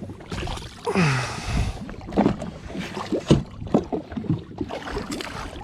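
Irregular knocks and clatter on a jet ski as a small snapper and gear are handled before measuring it, with a short rush of noise about a second in.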